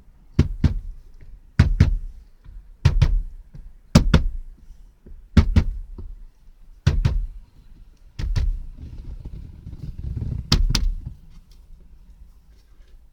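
Hand pressing and thumping a one-piece dash trim panel down onto a car's dashboard to seat its clips: about eight sharp thuds, several of them doubled, every second or so.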